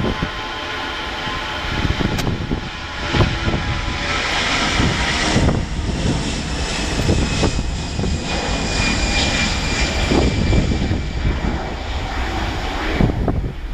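An Airbus A320-211's twin CFM56-5A1 turbofan engines at takeoff thrust during the takeoff roll: a loud jet roar with several steady whining fan tones. The tones slide slightly in pitch as the aircraft passes.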